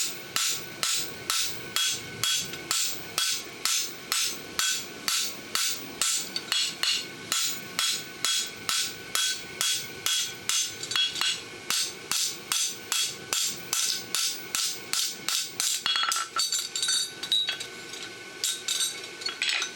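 Farrier's hand hammer striking a steel bar shoe on an anvil in a steady run of blows, about two and a half a second, each with a short metallic ring, as the shoe is flattened. The blows falter briefly about sixteen seconds in, then carry on.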